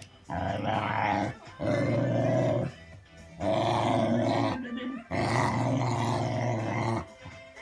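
Boxer cross Staffordshire bull terrier making long, drawn-out growling grumbles: four in a row, each a second or two long, with short breaks between them.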